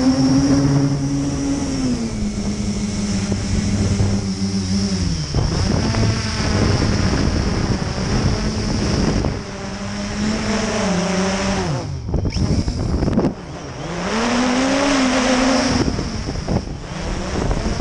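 Traxxas Aton quadcopter's motors and propellers buzzing, heard close up from the onboard camera, with a steady high whine above. The pitch rises and falls with the throttle, and the buzz drops away briefly several times, most deeply about twelve seconds in, as the throttle is cut and reapplied.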